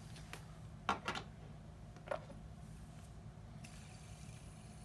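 Fidget spinner spinning quietly on its bearing, a faint steady hum, with a few light clicks about a second and two seconds in.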